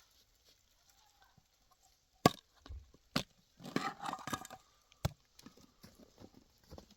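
A series of sharp knocks of hard objects striking. There is a loud one about two seconds in, another a second later, a dense clatter of knocks and scrapes just after, a single sharp knock near five seconds, and lighter taps to follow.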